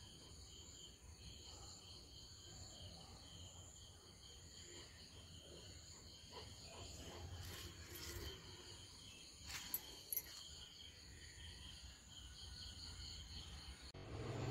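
Faint, steady pulsing chirr of insects such as crickets, with two soft clicks a little past the middle.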